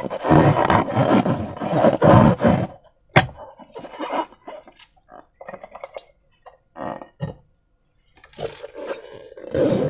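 Slime-filled rubber balloons being squeezed and handled: irregular squelching and rubbing noises in bursts, with a sharp snap about three seconds in.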